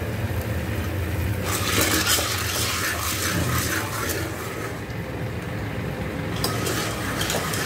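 A steel ladle stirs and scrapes popcorn kernels in hot oil inside an aluminium pressure cooker, with the kernels rattling and sizzling. It comes in two spells, the first starting about a second and a half in and the second near the end, over a steady low hum.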